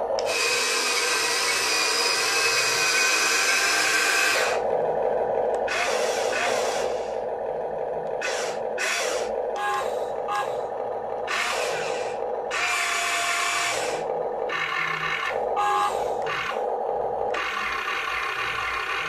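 Electric motors of a HUINA 1592 radio-controlled toy excavator whirring in short, irregular bursts. They start and stop as the boom, arm and bucket are worked from the remote.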